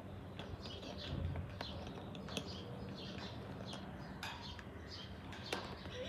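Parrot's beak clicking and scraping on the plastic cap of a water bottle as it bites at it, a string of irregular sharp taps with faint chirpy sounds between them.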